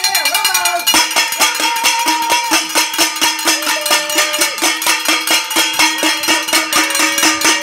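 A cowbell shaken hard and fast, several clanking strikes a second, starting about a second in and keeping up without a break.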